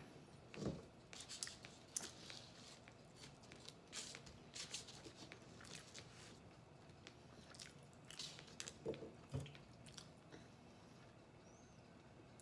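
Faint chewing and biting of pizza, with small mouth clicks at irregular intervals.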